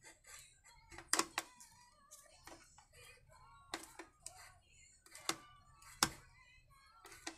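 Hand tool clicking and knocking against metal and plastic parts while an anti-vibration damper is screwed onto a chainsaw's rear handle: a string of sharp, irregular clicks, the loudest about a second in and again about six seconds in.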